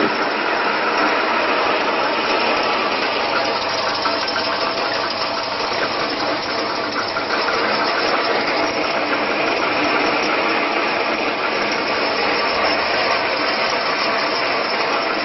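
Electric wheat-flaking machine running steadily as its rollers press grain into flakes: a loud, even mechanical noise.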